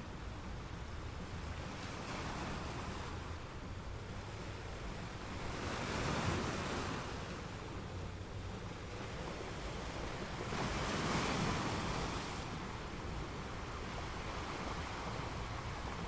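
Rough sea surf breaking and washing against rocky cliffs, a continuous rushing noise. Two bigger waves surge up, about six and eleven seconds in.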